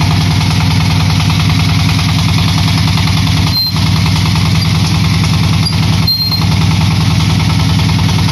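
Diesel engine driving a clay brick extrusion machine, running steadily with a fast, even beat.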